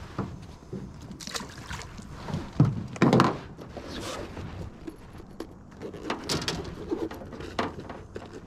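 Knocks, thumps and clatter of fish and tackle being handled in a small aluminum boat, loudest about three seconds in, with a few lighter knocks near the end.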